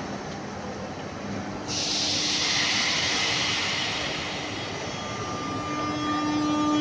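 RER B double-deck electric commuter train moving alongside an underground platform, with a steady rumble. About two seconds in, a loud hiss of air starts suddenly and carries on, and near the end a steady electric whine from the traction motors joins it.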